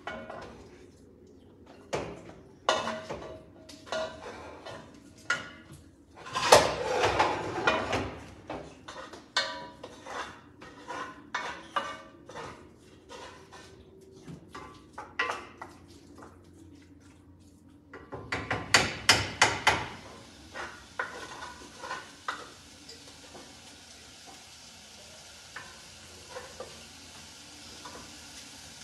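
A spoon knocking and scraping against cookware while mashing and stirring eba (cassava flakes and hot water), in irregular clatters with two denser bursts, about 6 and 18 seconds in. After about 20 seconds the clatter thins out to a few knocks over a faint steady hiss.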